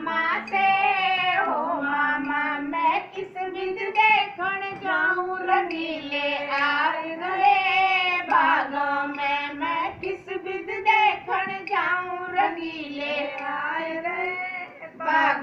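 Female voice singing a Haryanvi folk song (lok geet), a flowing melody of long held and bending notes.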